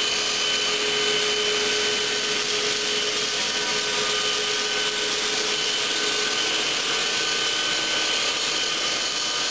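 Bridge saw's large diamond disc cutting through a stone slab under a water spray: a steady whine over a continuous hiss.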